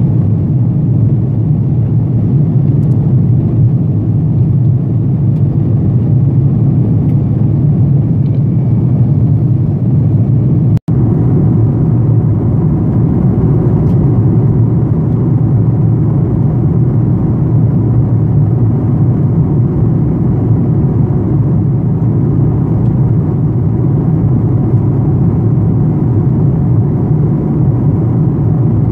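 Steady rumble of airliner cabin noise in flight: engine and airflow noise heard from inside the cabin beside the wing. It drops out for an instant about eleven seconds in.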